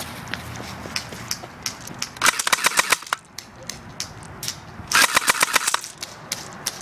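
Airsoft gun firing two rapid bursts of sharp clicking shots, about ten a second, the first about two seconds in and the second about five seconds in, with a few single clicks between them.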